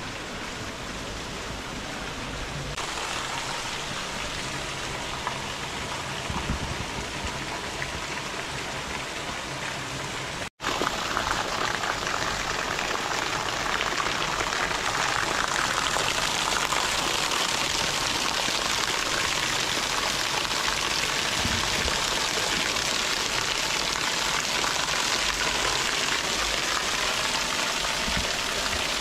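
Rushing water, a steady hiss with no distinct events; it cuts out for an instant about ten seconds in and comes back louder.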